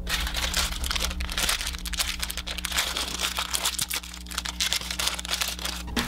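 Thin plastic candy bag crinkling and crackling as it is handled, with a dense, irregular patter of small crackles.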